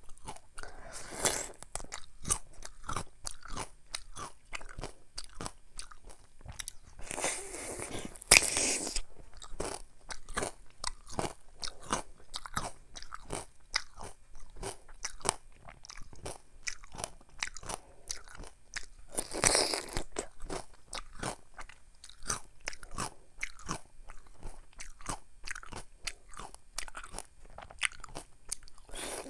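Crunching bites and chewing of crisp mini Korean oriental melon (chamoe), picked up close by a lapel microphone: a steady run of small chewing clicks, with louder bites about 1, 8 and 19 seconds in.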